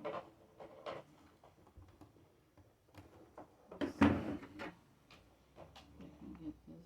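Handling noise from a laptop being taken apart: scattered clicks and knocks of plastic and tools, the loudest knock about four seconds in.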